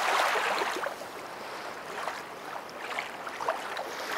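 Lake water splashing and dripping beside a kayak as a landing net holding a trout is lifted out, with small scattered splashes over a steady wash of water.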